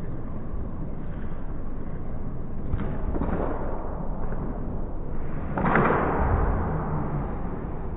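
Inline roller-hockey game sounds heard through a muffled action-camera microphone: a steady low rumble, a sharp stick-on-puck crack about three seconds in, and a louder bang with a short echoing tail a little after five and a half seconds.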